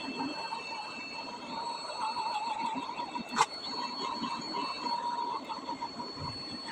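Gordak hot air rework station blowing: a steady rush of air from its fan with a faint high whine. A single sharp click comes about three and a half seconds in.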